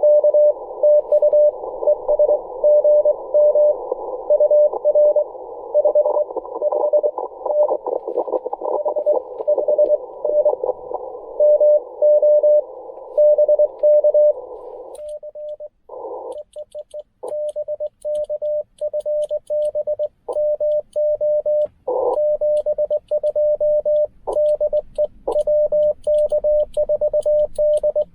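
Morse code (CW) tones from a Ten-Tec Argonaut V transceiver, keyed in dits and dahs at a pitch of about 600 Hz. For about the first fifteen seconds the code sits in the hiss of the narrow CW receive filter. Then the hiss drops out and a clean keyed sidetone carries on as code is sent, with brief flashes of receiver hiss between characters.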